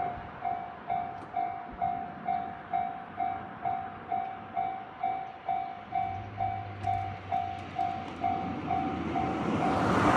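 Japanese level-crossing warning bell ringing steadily, about two strikes a second, as a train approaches; the train's noise builds near the end.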